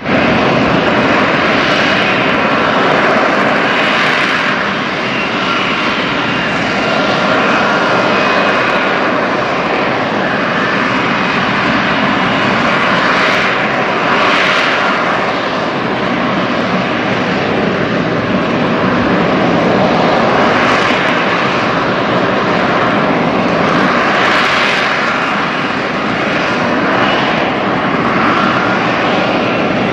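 F-35B Lightning II hovering in vertical-landing mode, its F135 jet engine and shaft-driven lift fan running as a loud, steady roar. A whistling whine rides on the roar and swells and fades several times.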